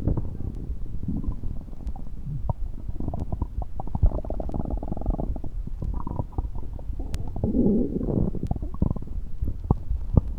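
Stomach gurgling and rumbling: a steady low rumble broken by many short, bubbly gurgles, with longer gurgles about a third and about three-quarters of the way through.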